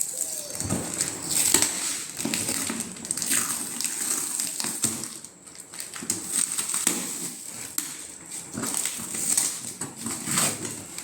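Packaging being handled during an unboxing: irregular rustling and crinkling with scattered knocks and clicks.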